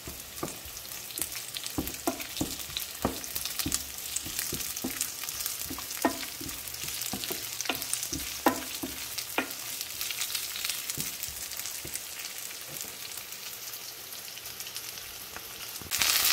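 Chopped onion sizzling in hot oil in a non-stick frying pan, with a wooden spatula stirring and knocking against the pan in many sharp clicks. The sizzle gets louder near the end.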